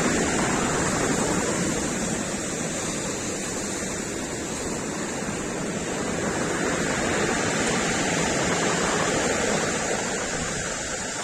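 Storm waves of the Black Sea breaking and washing on the shore: a loud, continuous rush that eases a little a few seconds in and builds again.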